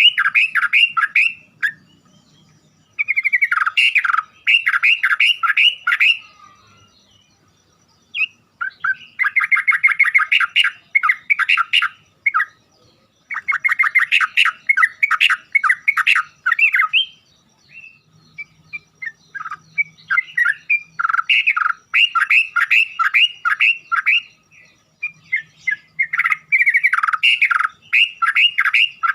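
Yellow-vented bulbul singing in rapid bursts: phrases of quick, repeated, chattering notes, about five a second, each phrase lasting a few seconds and separated by short pauses.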